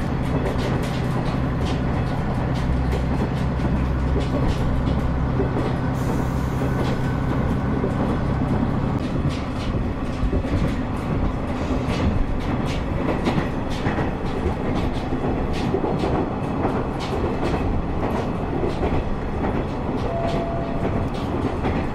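Diesel railcar running on the Kitakami Line, heard from inside the passenger cabin: a steady rumble of wheels on the rails with irregular clicks from the track. A low engine hum drops away about nine seconds in.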